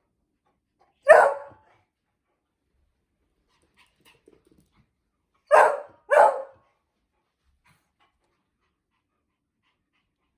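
A dog barking sharply three times: one bark about a second in, then two quick barks a little after the halfway point.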